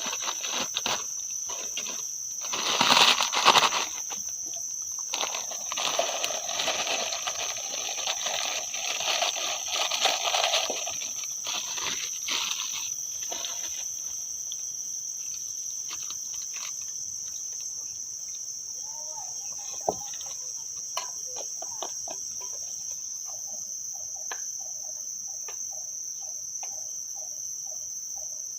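Insects, crickets, trilling in one steady high drone. Over it come close rustling and clicking, loudest about three seconds in, which fade out about halfway. After that a rapid series of short, lower pulses repeats to the end.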